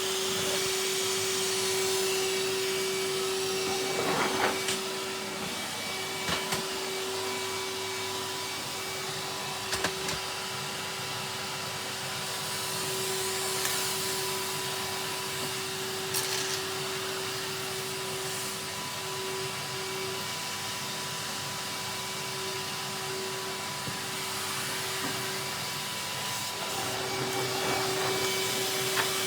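Vacuum cleaner running steadily, a constant motor whine over a hiss of airflow, with a few short knocks.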